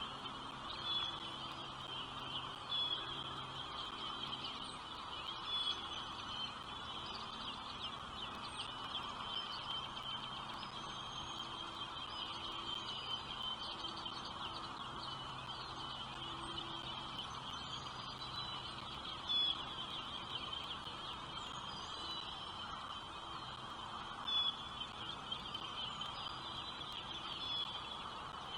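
Birds chirping continuously in a steady high chatter, with lower calls beneath and a few brief louder notes standing out.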